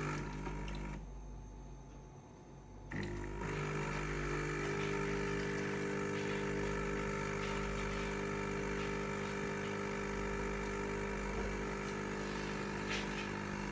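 Jura Z10 automatic coffee machine's pump running with a steady hum as it brews the coffee into the glass. The hum dips briefly about a second in, then comes back stronger about three seconds in and holds steady.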